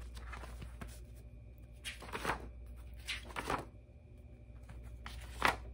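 Paper rustling as spiral sketchbook pages are handled and turned: three short rustles, the last the loudest, over a low steady hum.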